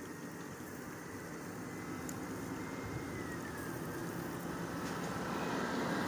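A motor vehicle running on the road, its steady engine and road noise growing gradually louder as it approaches.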